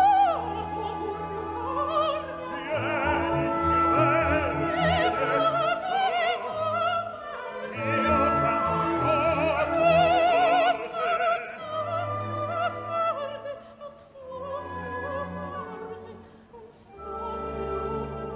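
Operatic mezzo-soprano singing with wide vibrato over a full symphony orchestra. It is offered as an example of singing in which the notes do not lead fluently into one another, a lack of legato.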